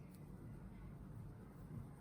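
Near silence: quiet room tone with a low steady hum and one faint click just after the start.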